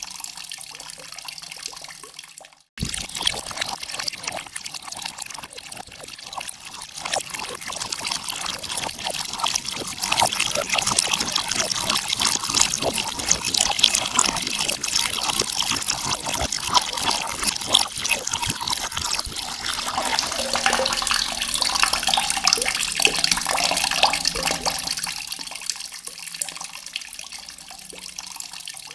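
Water running and splashing in a dense, steady patter. It cuts in abruptly about three seconds in after a brief silence, grows louder, and eases off near the end.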